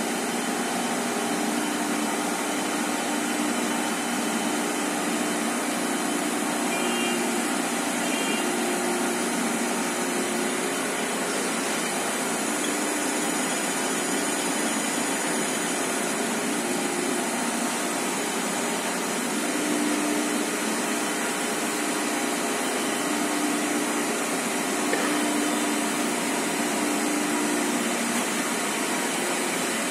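Dechangyu FC IV 3600 high-speed tissue slitting machine running at about 800 metres a minute: a steady whirring rush of rolls and paper, with a low hum that swells and fades now and then.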